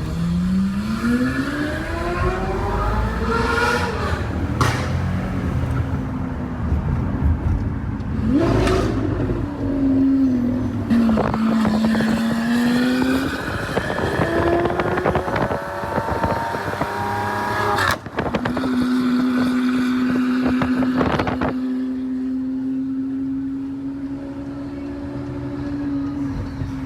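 Lamborghini Aventador SVJ's 6.5-litre V12 revving and pulling hard. Its pitch climbs for about four seconds, falls back, climbs again, then holds steady for several seconds near the end. Sharp cracks come at a few of the drops.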